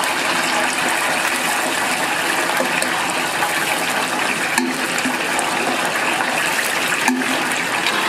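Battered chicken pieces deep-frying in a fryer of hot oil, sizzling with a steady, loud, bubbling hiss.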